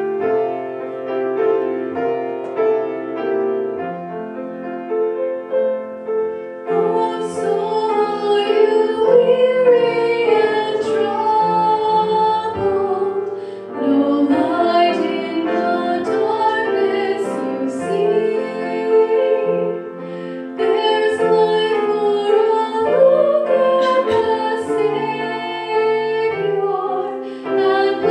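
Grand piano playing an introduction, then a woman singing with the piano accompanying her from about seven seconds in.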